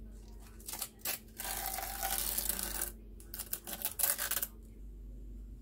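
Paper masking tape being peeled off the edge of a freshly painted speaker cabinet: a run of crackly ripping strokes with short pauses between them, stopping about four and a half seconds in.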